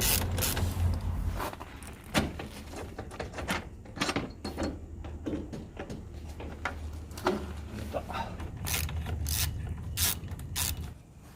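Hand tools and metal exhaust parts clicking and knocking at irregular intervals while work goes on at a motorcycle's exhaust, over a low steady hum.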